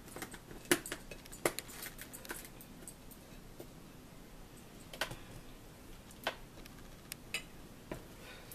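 Light clinks and clicks of a fork on a plate and condiment bottles being handled and set down at a meal: sharp separate taps every second or so, loudest about a second in.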